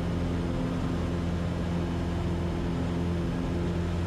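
Cessna 150's four-cylinder Continental O-200 engine and propeller droning steadily at climb power just after takeoff, with an even low hum.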